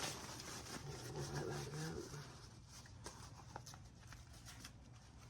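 Faint handling noise of a mechanic tool set: light clicks and rubbing as tools and sockets are moved in their plastic case, with a brief low hum about a second in.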